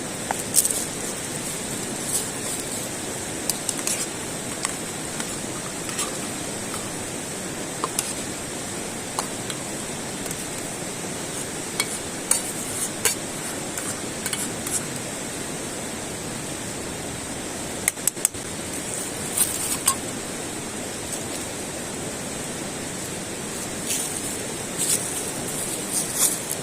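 Scattered light clinks and taps of small hard objects, the sound of utensils or cookware being handled, over a steady rushing background noise.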